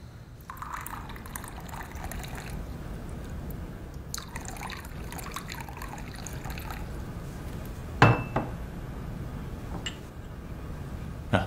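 Liquor poured from a ceramic jug into two small porcelain cups, one cup after the other, each pour lasting about two seconds. Later come two sharp knocks, the louder one about eight seconds in.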